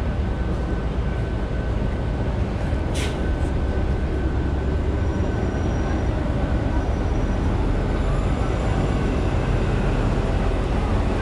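Steady low rumble of street traffic, with a city bus engine running alongside, under a faint steady whine. A single sharp click comes about three seconds in.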